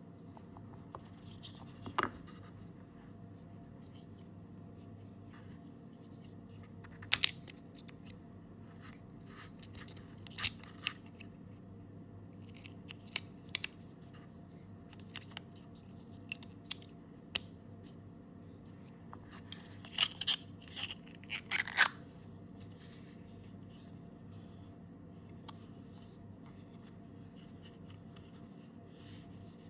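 Wago connectors and their 3D-printed plastic case being handled: scattered small plastic clicks, taps and scrapes, busiest about seven seconds in and again around twenty to twenty-two seconds in, over a steady low hum.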